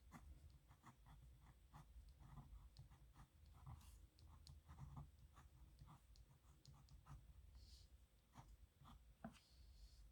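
Faint scratching of a pen on paper in many short, quick strokes as someone writes by hand.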